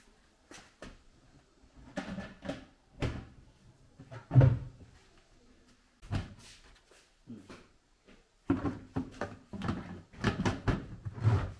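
Irregular knocks and clatters of household things being handled and set down, the loudest a heavy thump about four seconds in. Near the end, a quick run of knocks as a plastic bucket lid is worked.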